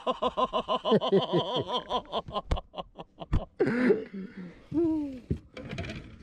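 A man's excited laughter, a quick run of short laughs, followed by a few sharp clicks and brief excited exclamations, one a falling hoot-like call about five seconds in.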